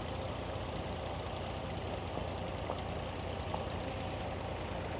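David Brown 880 tractor engine running steadily, with a constant hiss of outdoor noise.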